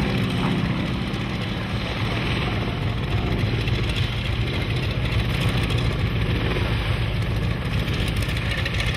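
Seven-cylinder radial engine of a PZL-106 AR Kruk agricultural aircraft running steadily at low power as the plane taxis, propeller turning.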